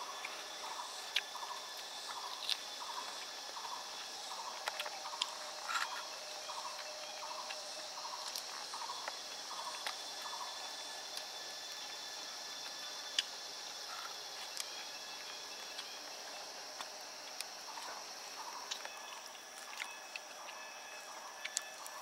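Forest ambience: a steady high insect drone with a repeated chirping call, about one and a half chirps a second, that stops midway and comes back near the end. Scattered sharp clicks and ticks sit over it.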